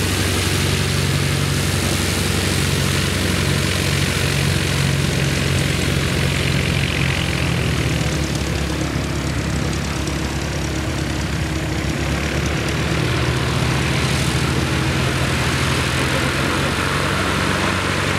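Piper PA-28-180 Cherokee Archer's four-cylinder Lycoming O-360 engine and propeller running at low taxi power as the light aircraft rolls along the runway. The engine hum is steady, and its pitch shifts slightly around the middle.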